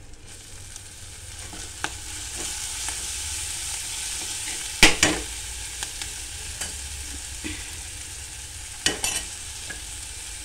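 Hot oil sizzling in a pressure cooker as microgreens fry with green chillies and tempering seeds; the sizzle swells a couple of seconds in. A steel spoon stirs and knocks against the pot, sharpest about five seconds in and again near the end.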